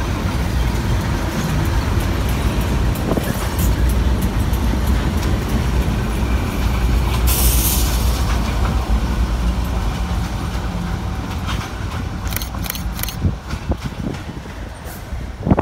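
Several diesel locomotives heading a freight train pass at close range, engines giving a steady deep rumble that eases as they draw away after about ten seconds. A short hiss about seven seconds in, and scattered clicks near the end.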